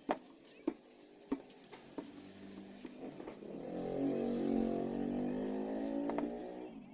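A few light clicks and taps of a tool on the chassis, then from about three seconds in a motor vehicle engine that swells and fades away, like a vehicle passing by.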